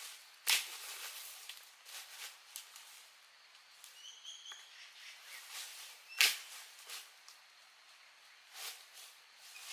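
Scattered knocks and rustles outdoors, with two louder knocks about half a second in and about six seconds in, and a short bird chirp about four seconds in.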